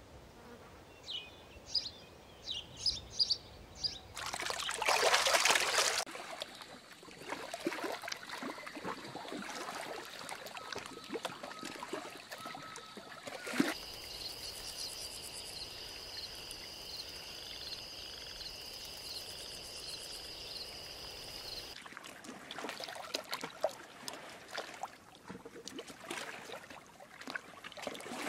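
Changing outdoor nature sounds: a few bird chirps, a loud rush of noise about four seconds in, then a steady high insect trill lasting about eight seconds, and trickling water with scattered clicks and rustles.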